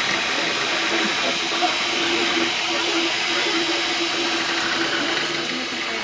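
Desktop 3D printer at work: its stepper motors whine in a pitched tone that breaks and resumes with each move of the print head, over a steady hiss.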